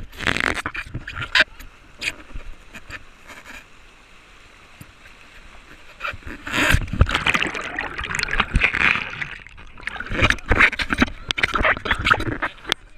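River water rushing and splashing over a natural rock water slide, right at an action camera. About six seconds in it turns loud, with dense splashing and knocks as the camera goes down the chute through the white water.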